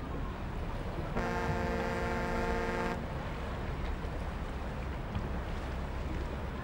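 Low rumble of a river tour boat under way with wind on the microphone, and a single steady horn blast lasting under two seconds about a second in.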